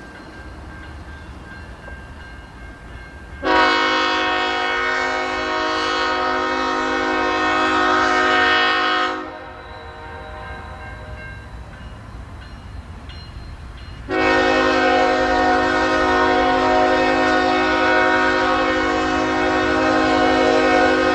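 Diesel locomotive air horn on the approaching train's lead unit, the Norfolk Southern Railway heritage ES44AC NS 8114, sounding two long blasts about five seconds apart, each held for six to seven seconds, the opening blasts of the signal for the grade crossing.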